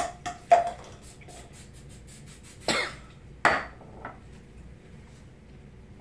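Clicks from handling a spray bottle, then a quick run of short hissing sprays as it is pumped onto the hair, followed by two coughs near the middle.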